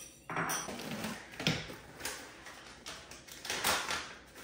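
A plastic package crinkling and rustling as it is handled, in several short bursts about a second apart.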